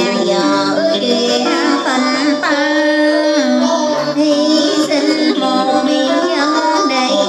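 Music: a woman singing a melody with sliding, ornamented pitch over instrumental accompaniment.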